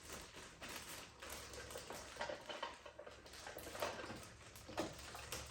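Faint, scattered clicks and light knocks of plastic food-storage containers and produce being handled and set down.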